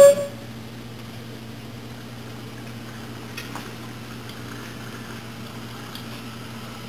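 A burst of steam from an 1860s steam hat-blocking machine cuts off abruptly right at the start. A steady low hum follows, with a few faint ticks.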